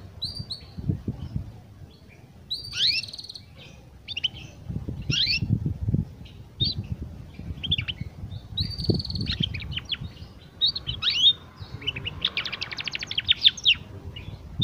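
Young canary's practice song: a loose jumble of short chirps and rising and falling whistled notes, with a fast trill near the end.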